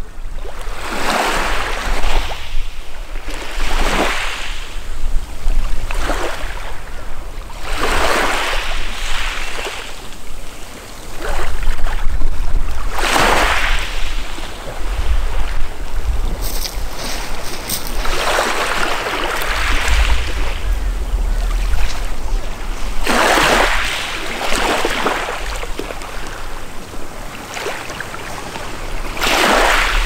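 Small, gentle sea waves washing up a pebble shore, a rushing swell every four to five seconds, over a steady low rumble.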